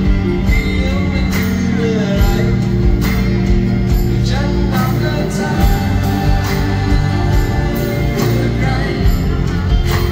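Live band music: a man singing over acoustic guitar, bass and a steady drum beat.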